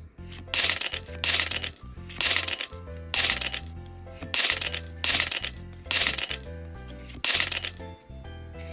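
Trading cards being flipped through one by one, making about eight short crisp swishes, roughly one every second, over quiet background music.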